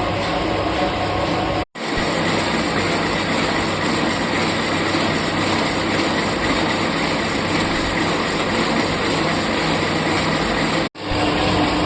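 A lathe running with a steady, dense machining noise and an underlying hum. The sound drops out for an instant twice, about two seconds in and near the end.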